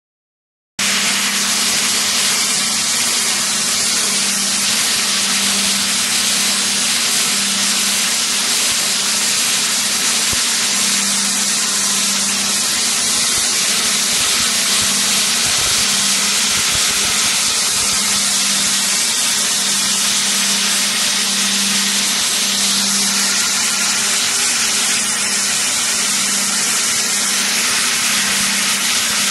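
Wet abrasive blasting nozzle spraying a high-pressure water-and-sand jet onto a steel pipe: a loud, steady hiss that starts abruptly about a second in. Underneath it, a low hum swells and fades over and over.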